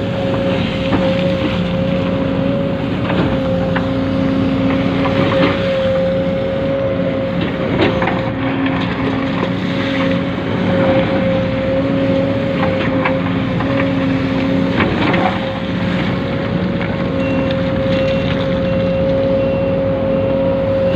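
Steady high whine from a radio-controlled model's electric motor and gearing, with a lower tone that comes and goes and scattered clicks and clatters.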